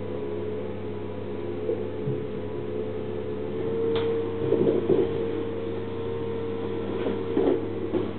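HoMedics Shiatsu massage cushion's motor running with a steady hum, with a few short rustles and knocks of someone shifting against the cushion around the middle and near the end.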